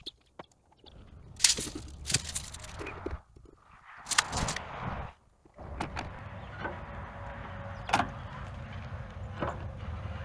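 Scattered clicks, knocks and scrapes of someone working with a tape measure on a steel roof frame. A steady low hum comes in a little past halfway, with a sharp click near the end.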